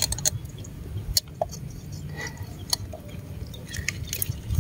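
Scattered small clicks and scrapes of pliers working at an airgun dart stuck in a tilapia's head, over a low rumble. The dart will not come out.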